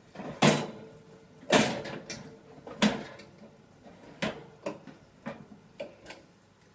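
A series of sharp, irregular knocks and clanks, about nine in all and loudest in the first three seconds, as a metal utensil gripped in the teeth bumps against a small countertop oven and the tray being slid out of it.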